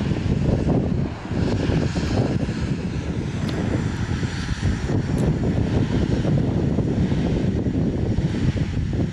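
Steady, loud, low roaring rush at the active lava lake of Erta Ale volcano, with wind buffeting the microphone and a few faint cracks.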